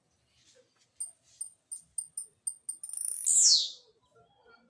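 A small songbird singing: a run of short, very high chip notes, about three a second, then a loud high note that sweeps down in pitch about three seconds in.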